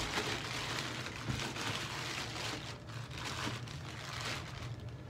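Plastic clay bag crinkling and rustling as it is handled, dying away near the end, over a low steady hum.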